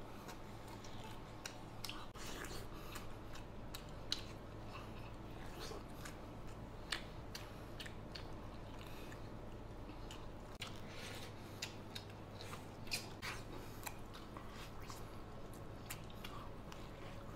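Close-up chewing and biting of braised beef leg-bone meat, with irregular short mouth clicks and smacks over a steady low hum.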